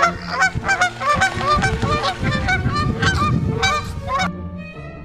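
A flock of Canada geese honking, many rapid overlapping calls, which cut off abruptly about four seconds in. A held musical note fades out in the last second.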